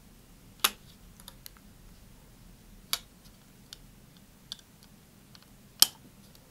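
Hobby knife blade pressed through a thin vacuum-formed plastic sheet on a cutting mat, giving three sharp, well-spaced clicks, the last the loudest, with fainter ticks between.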